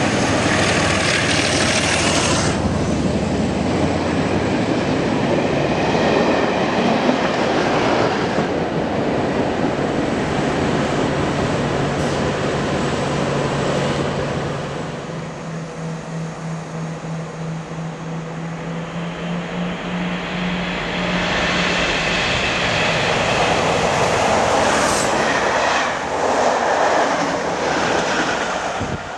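A Class 47 diesel locomotive and its test coaches pass close by, with engine noise and wheels clattering over the rail joints. The sound dies down to a steady diesel engine hum as the train draws away. About two-thirds of the way through, another diesel-hauled test train rushes past.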